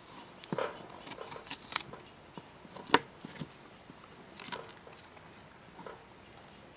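Knife chopping an apple on a plastic cutting board: a series of irregular light knocks of the blade striking the board, the sharpest about three seconds in.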